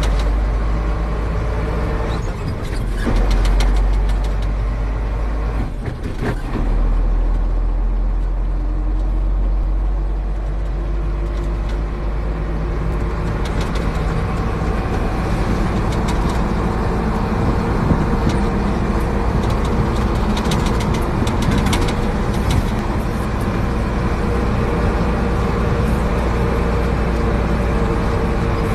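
A heavy truck's engine running with road noise while driving, heard from inside the cab: a steady low rumble.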